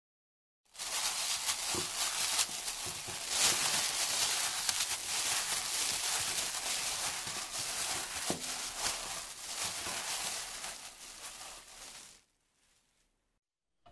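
Disposable plastic glove crinkling and rustling as a gloved hand mixes pieces of pig's trotter with seasoning in a stainless steel bowl, with a few soft knocks. It starts about a second in and stops about twelve seconds in.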